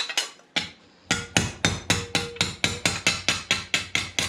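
Hammer striking a sheet-steel repair patch to shape it: a few blows near the start, then a fast, even run of strikes at about six a second from about a second in.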